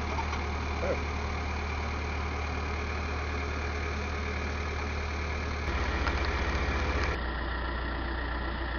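Excavator engine running steadily at a low hum. A little over halfway through it grows louder, with a fast pulsing beat for about a second and a half.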